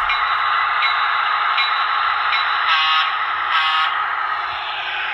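Sound decoder of a Broadway Limited HO-scale EMD F3 diesel model (Paragon4 sound) playing through its small onboard speaker: a steady diesel engine rumble with a click about every three-quarters of a second, and two short horn blasts about three seconds in. It fades slightly near the end as the locomotive moves away.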